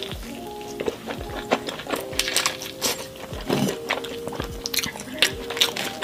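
Close-up eating sounds of a person biting and chewing pizza: crisp crackles and wet mouth clicks, heard over background music.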